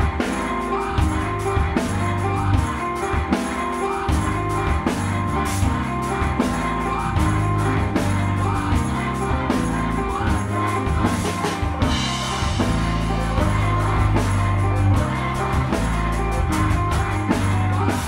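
Live band music: a drum kit keeps a steady beat under a busy, moving bass line and keyboards, with a held high synth tone throughout. About twelve seconds in the cymbal wash drops away and the texture thins.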